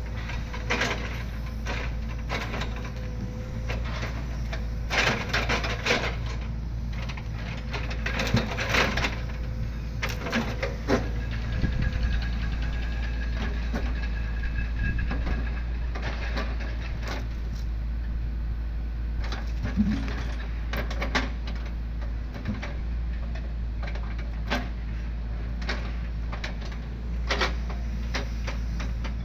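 Tracked excavator with a log grapple running, its engine a steady low drone, while logs knock and clatter against each other and the truck bed as they are gripped and loaded, with a sharp knock every few seconds.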